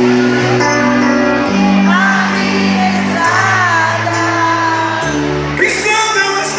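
Live band music with a singer: held bass notes change every second or two under a sung melody that wavers with vibrato in the middle. A sharp hit comes near the end.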